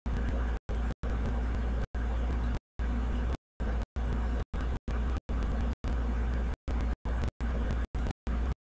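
Steady low hum and hiss from the recording, broken by frequent abrupt dropouts to dead silence, several in each second, as in a glitching audio track.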